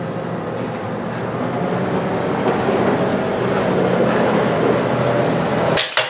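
Large farm tractor's diesel engine running steadily as the tractor comes closer, growing louder over the last few seconds. Near the end it cuts off abruptly and a few metallic clinks follow.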